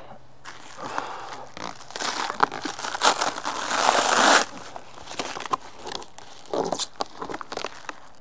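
A cardboard box and its packing tape being torn and picked open by hand, without a knife. A loud stretch of tearing runs from about two seconds in to just past four, followed by scattered crinkles and crackles.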